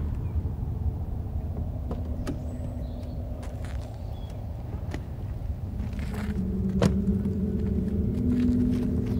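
A car's engine makes a low, steady rumble, with a few sharp clicks from the car door as the driver's door is opened and he steps out; the loudest click comes near the end. A low, steady drone of several pitches comes in about six seconds in.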